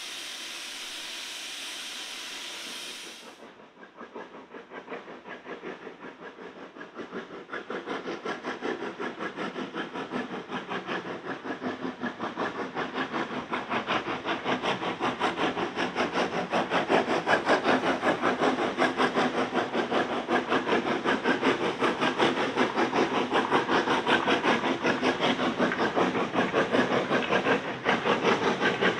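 Steam locomotive: a steady hiss of steam for the first few seconds, then the engine's exhaust beats in an even chuffing rhythm that grows louder through the first half and then holds steady.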